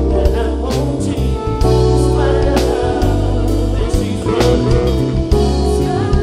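Live band music: electric guitar and keyboards over bass and drums, with a voice singing.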